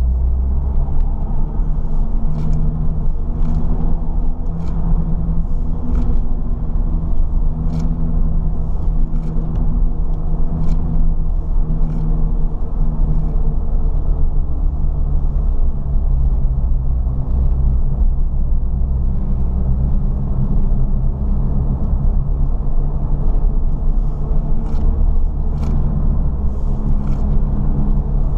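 Ford Fiesta ST running hard, heard from inside the car: a loud engine note whose pitch rises and falls over heavy road and cabin rumble, with faint clicks now and then.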